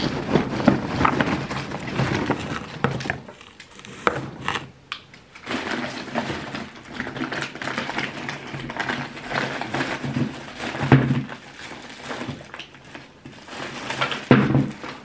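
Packing paper and wrappings rustled and crumpled by hand while digging through a parcel, with irregular crackles and small knocks and a quieter pause about four seconds in.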